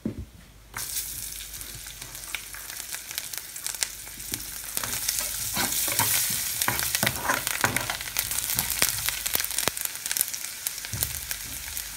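Garlic cloves dropped into hot spiced oil in a frying pan: the oil starts sizzling loudly less than a second in, then keeps sizzling with frequent crackles and spits as the garlic is stirred with a spoon.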